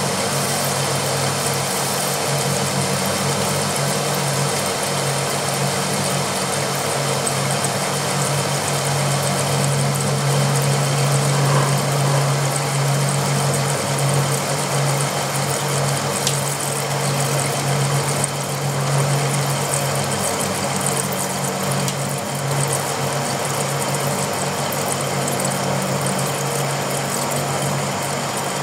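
Pratt & Whitney Model C engine lathe running at 453 RPM while facing a 6-inch steel bar: a steady low hum from the drive and gearing under the continuous noise of the tool cutting and chips coming off.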